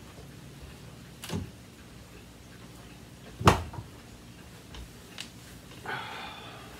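Footsteps and handling knocks on a carpeted floor: a dull knock about a second in, a sharp knock, the loudest, about three and a half seconds in, then a couple of light ticks. It ends with a brief rustle of clothing as a person kneels down on the carpet.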